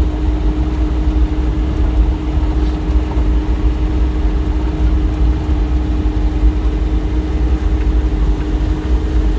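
Bobcat E35 mini excavator's diesel engine running steadily, heard from inside the closed cab: a constant low rumble with a steady hum.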